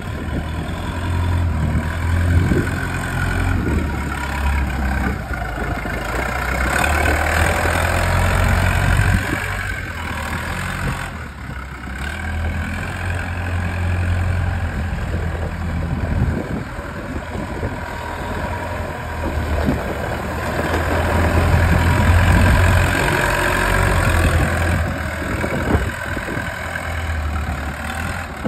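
Telescopic handler's diesel engine running as the machine drives and turns, its note rising and falling with the throttle.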